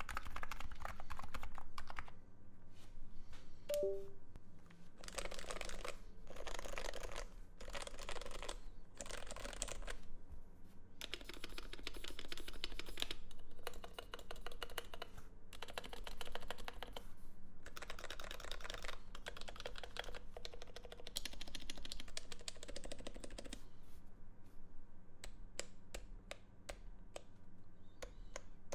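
Typing on an electro-capacitive keyboard with Topre-style rubber-dome switches: fast runs of keystrokes in bursts of a second or so, separated by short pauses. Near the end these give way to slower, separate key presses.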